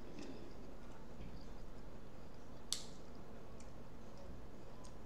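Quiet eating sounds: faint clicks of a fork and mussel shells handled in a ceramic bowl of pasta, with one sharper click about two and a half seconds in, over a steady low hum.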